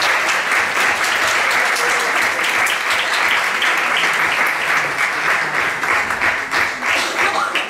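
Audience applauding: a dense, steady clatter of many hands clapping that thins out near the end.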